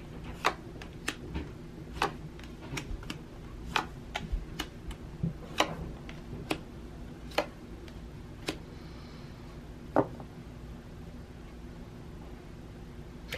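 About fifteen light, sharp clicks or taps at uneven intervals over the first ten seconds, then only faint room tone.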